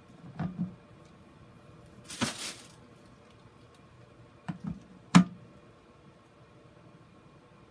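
Hard plastic knocks as a plastic grid mounting board is handled on a plastic bucket: a couple of soft knocks near the start, a short rustling crunch about two seconds in, and a few more knocks a little past five seconds, the last one sharp and the loudest.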